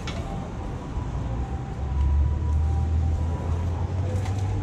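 Low rumble of a passing vehicle, swelling about two seconds in and holding, with a light click at the start.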